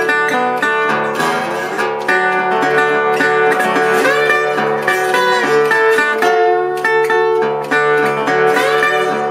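Metal-bodied resonator guitar played slide style with fingerpicks: an instrumental country blues of plucked notes with sliding glides in pitch over a steadily ringing lower note.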